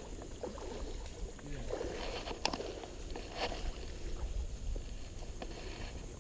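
River water moving and sloshing around a wading angler, under a steady low rumble, with a couple of faint clicks in the middle.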